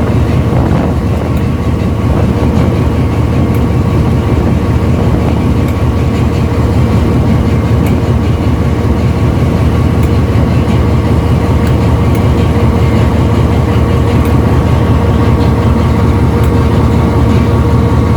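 Diesel-electric locomotive engine running steadily and loud, a deep engine note with an even whine over it.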